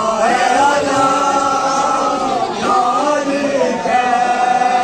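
A male voice chanting a nauha, the Shia lament recited during Muharram, in long, drawn-out melodic lines.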